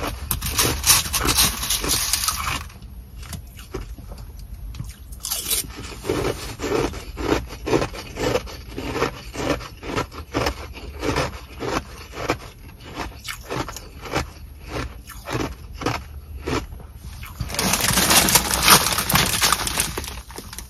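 A plastic bag of Sonic nugget ice being worked with a plastic spoon: the ice pellets crunching and scraping inside the crinkling bag. Through the middle come separate crunches, one or two a second, and near the end the bag is rubbed close up in a dense crinkling rush.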